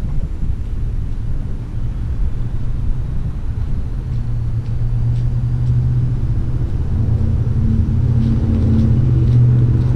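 Steady low rumble outdoors. A low motor hum comes in about four seconds in and grows louder, with faint footsteps on asphalt toward the end.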